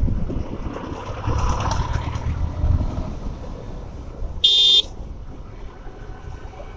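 Motorcycle riding noise with wind rumbling on the microphone, and a single short vehicle horn toot about four and a half seconds in.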